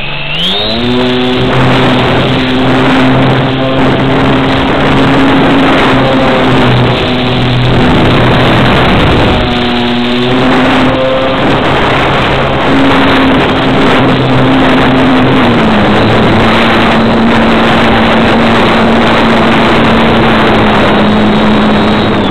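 Parkfun Scout model airplane's motor and propeller, recorded up close from a camera mounted under the plane with air rushing over the microphone. The motor spins up in the first second, then runs steadily at high throttle, its pitch dipping briefly about ten seconds in and settling a little lower after about sixteen seconds.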